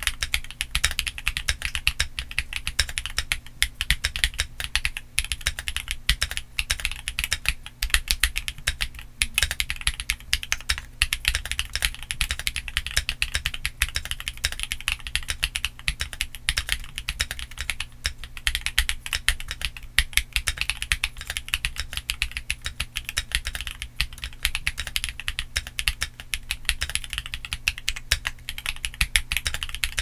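Continuous fast typing on a TKC Portico68 Black Label mechanical keyboard with MMD Princess linear switches and Domikey Snaake Chaser double-shot ABS Cherry-profile keycaps: a steady stream of keystrokes in quick succession.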